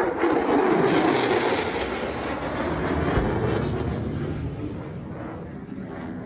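Low-flying military aircraft passing close overhead: a loud engine roar that drops in pitch as it goes by, peaks in the first couple of seconds, then slowly fades away.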